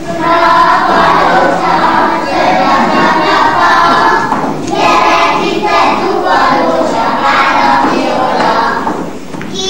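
A group of young children singing a song together during a ring-game dance.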